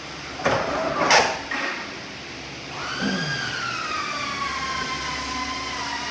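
A few knocks and clatter about a second in. Then a machine's electric motor starts about three seconds in, its whine climbing quickly and then sinking slowly in pitch as it keeps running.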